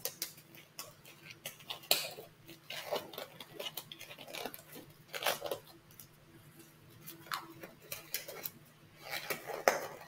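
Nitrile exam gloves being pulled on over the hands: irregular crackling and rustling of the thin rubber, busiest near the end.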